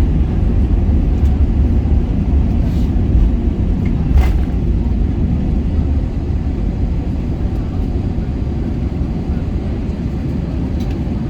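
Cabin noise inside an Airbus A321ceo during the landing: a steady, loud low rumble of engines and airflow that eases off slightly after about six seconds, with one sharp knock about four seconds in.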